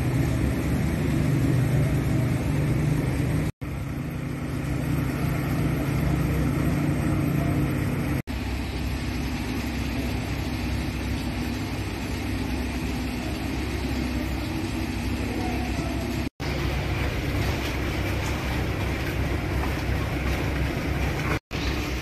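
A steady low engine drone over outdoor street noise, heaviest in the first eight seconds. The audio cuts out abruptly at each edit between several short clips.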